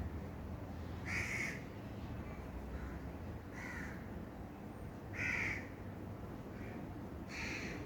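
A crow cawing: four short harsh calls, roughly one every two seconds, with a few fainter calls between them, over a steady low background rumble.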